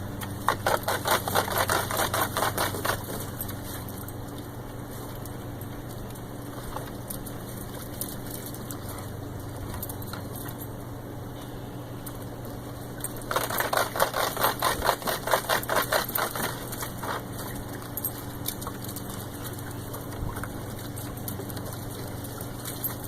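Dog splashing in pool water in quick, rhythmic strokes, two spells of rapid splashes, the first at the start and the second about halfway through, over a steady low hum.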